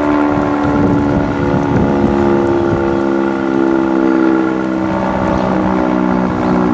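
Sentry 10V outdoor warning siren sounding its steady alert signal: a loud sustained chord of tones, with a lower tone joining about three seconds in. Strong wind buffets the microphone underneath.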